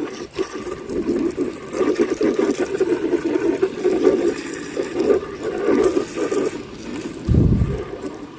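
Running water splashing while a muddy plastic toy is washed, with a low thud near the end.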